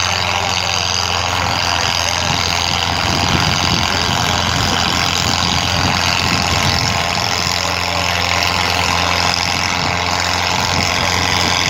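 Tractor diesel engine running steadily at constant revs while dragging a heavy load over sand, its black smoke the sign of an engine working under hard load.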